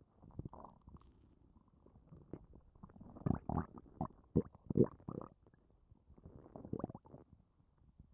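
Human stomach gurgling and rumbling with digestion, bloated after drinking soda. Irregular gurgles run through, loudest in a quick cluster about three to five seconds in, with another burst about seven seconds in.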